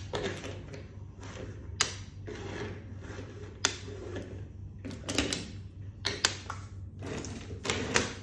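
Toy vehicles being handled on a wooden tabletop: about five sharp clicks and knocks, with scraping, rolling noise in between, over a steady low hum.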